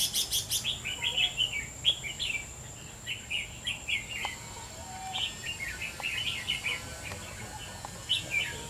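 Red-whiskered bulbuls singing: short, quick chirpy phrases one after another, with a bright burst of notes right at the start.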